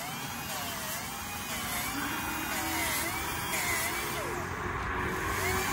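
Small pneumatic sander whining against an alloy wheel rim, its pitch dipping and recovering about twice a second as it is pressed onto the metal and eased off, while curb rash on the wheel is smoothed out.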